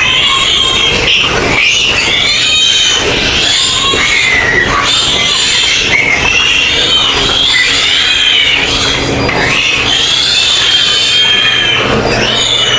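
A group of young piglets squealing over and over in high, wavering cries, with the steady hum of a ventilation fan underneath.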